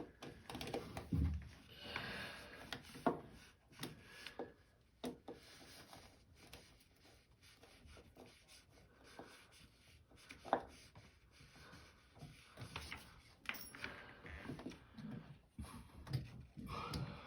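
Hands working on washing-machine motor parts: scattered clicks and light knocks of plastic and metal parts being handled and fitted, with rubbing in between and a few sharper knocks.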